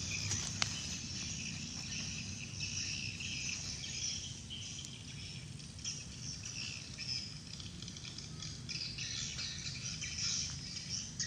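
Insects chirring steadily, with a low hum underneath and a single sharp click about half a second in.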